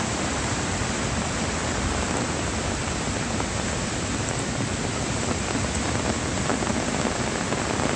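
Flooded mountain stream, swollen with muddy water, rushing past in a steady unbroken wash of noise.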